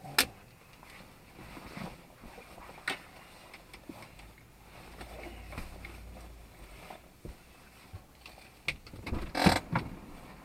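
Low rumble inside a car cabin, with a few sharp clicks and knocks and a louder cluster of knocks near the end.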